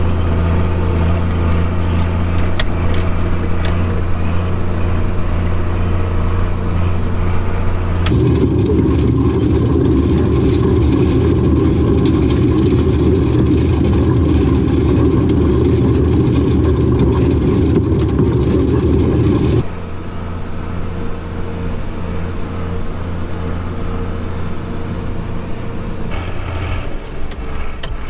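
Farm tractor engine running steadily while pulling a hay rake. About eight seconds in, the sound switches abruptly to a louder, rough rumble, and near twenty seconds it switches back to the steady engine hum.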